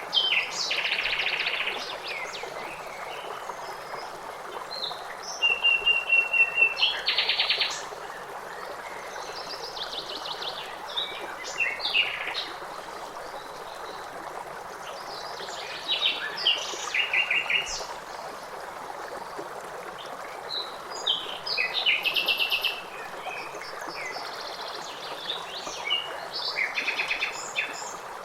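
Several songbirds singing and chirping in repeated short phrases over the steady rush of a stream.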